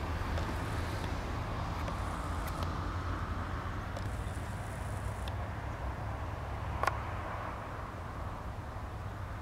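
Steady low outdoor background rumble with a few faint clicks, and one sharper click about seven seconds in.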